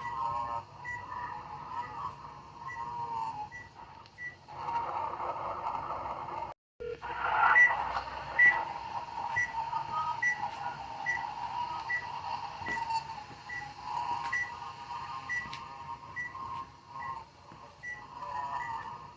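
Electronic beeping sound effect: a short high beep repeats about once a second over a wavering, warbling tone. A burst of hiss comes about a third of the way in, and the sound cuts out for an instant.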